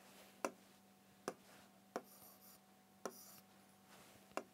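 Faint taps of a stylus on an interactive whiteboard: five short clicks at uneven intervals, a little under a second apart, over a faint steady electrical hum.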